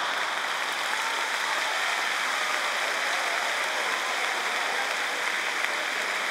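Theatre audience applauding steadily, with laughter mixed in.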